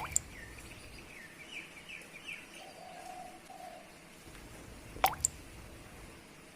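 Birds calling: a quick run of short chirps, then a lower two-part call about three seconds in, over a faint steady hiss. Two pairs of sharp clicks stand out above everything else, one pair at the start and one about five seconds in.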